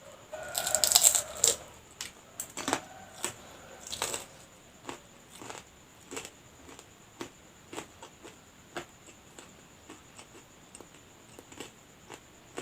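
A crunchy bite into a fried lumpia whose wrapper is a little hard, followed by close-miked chewing with sharp crunching clicks about twice a second.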